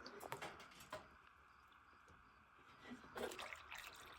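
Near silence, with a few faint clicks and taps in the first second and again about three seconds in.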